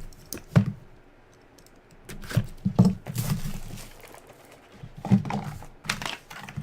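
Hands opening and handling cardboard card boxes and their packaging: scattered taps, knocks and crinkling, in two busy spells with quieter gaps.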